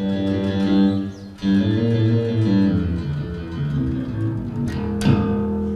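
Electric bass guitar played through an audio interface and Guitar Rig amp-simulation software, heard over monitor speakers. A few plucked notes ring out, with a short break about a second in, and a sharp attack about five seconds in.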